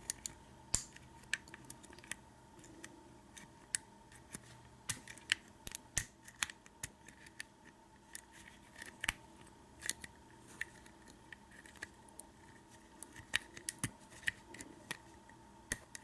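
Lock pick and tension wrench clicking and scraping on the pins of a Kwikset door knob lock during single pin picking, in irregular sharp ticks a few per second.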